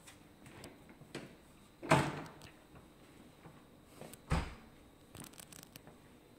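Two knocks of doors being handled, about two and a half seconds apart: the first is the louder, and the second is a dull, heavy thump as a cupboard door is opened. A few faint clicks follow.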